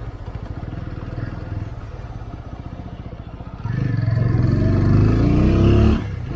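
TVS Apache RTR 200 4V's single-cylinder engine pulling under load. It pulses evenly at low revs at first. About three and a half seconds in, the throttle opens and the revs climb in a steady rising note, then drop sharply just before the end.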